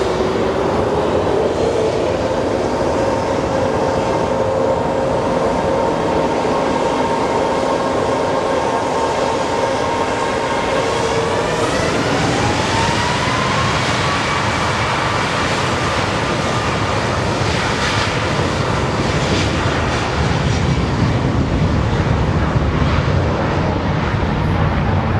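Boeing 737 MAX 8's CFM LEAP-1B turbofan engines whining steadily, then rising in pitch about halfway through as they spool up to takeoff thrust. This gives way to a broad jet roar with a deepening rumble near the end as the aircraft rolls down the runway.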